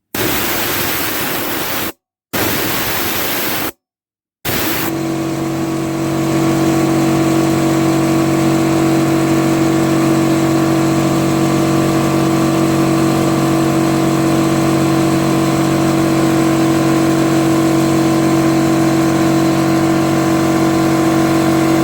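Two short bursts of compressed air hissing out of the airline, then the air compressor kicks on about four seconds in and its motor and pump run at a steady pitch, refilling the tank after the pressure has dropped to the 60 psi cut-in point of its newly fitted pressure switch.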